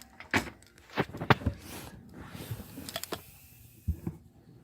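A string of short, sharp knocks and clicks: a few spaced single knocks, with a quick cluster of three about a second in, typical of cabinet doors and fittings being handled inside the RV.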